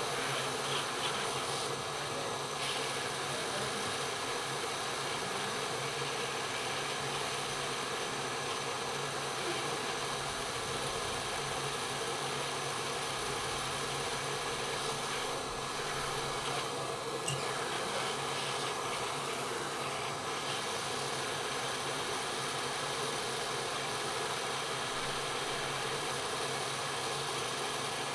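Hot-air rework station blowing steadily, a constant rush of air with a fan hum, heating the U2 charging chip on an iPhone 5s logic board to loosen its solder for removal.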